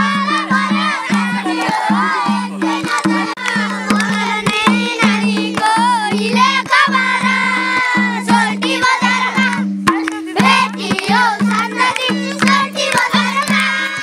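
Children singing a Nepali folk song together to a madal hand drum. The drum is beaten in a quick, steady rhythm while the many voices sing over it.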